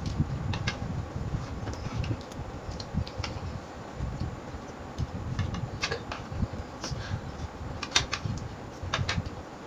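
Metal forks and spoons clinking and scraping against plates in irregular clicks, the loudest about eight seconds in, over a steady low rumble.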